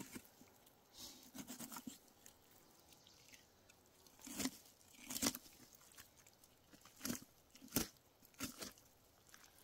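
Skinning a black bear by hand: a series of short crunching and ripping sounds at irregular intervals as the knife and hands separate the hide from the carcass.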